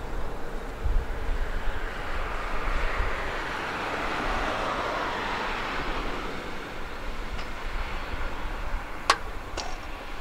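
Quest Kodiak 100's Pratt & Whitney PT6A turboprop running at idle with the propeller turning, a steady hiss that swells in the middle and eases off. A sharp click near the end.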